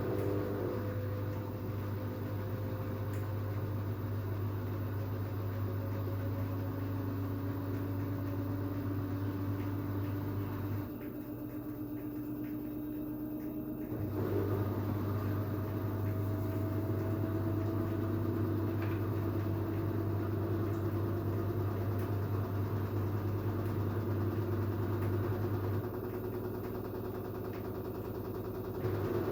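LG FH4A8TDN2 front-loading washing machine's drum spinning up on the 1400 rpm spin cycle, its direct-drive motor whine rising slowly in pitch. A steady low hum underneath cuts out for a few seconds about eleven seconds in and again near the end.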